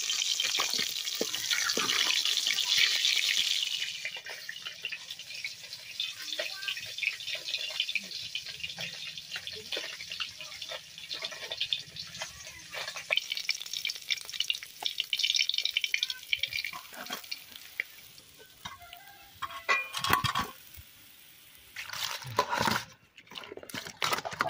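Small whole fish frying in oil in a metal wok: a loud sizzle for the first few seconds, then steady crackling with the scrape of a spatula. Near the end, water splashing as sliced brinjal is rinsed by hand in a steel bowl.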